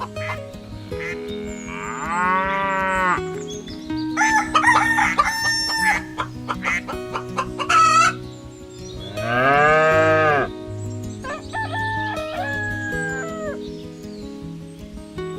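A rooster crows twice, each crow a long call that rises and then falls, with hens clucking between the crows over steady background music.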